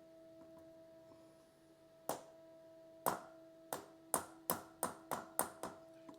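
A series of about nine sharp metallic clicks from hand tools being worked on a motorcycle chain's joining link, sparse at first and then coming quicker, over a steady low hum.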